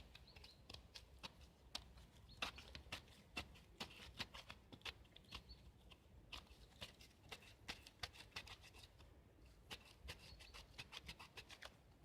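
Knife blade scraping birch bark into fine tinder fluff: faint, quick, irregular scraping strokes, a few each second, with a short pause near the end.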